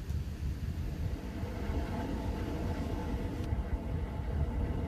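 Steady low rumble with a faint hum above it; a thin high hiss drops away about three and a half seconds in.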